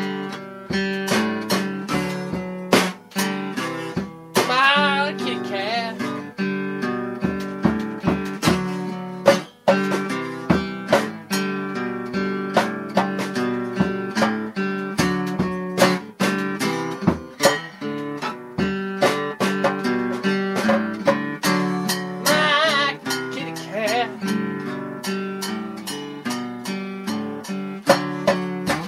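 Acoustic guitar music, strummed and picked in a steady rhythm. Twice, about five seconds in and again near the end, a short wavering high tone rises over it.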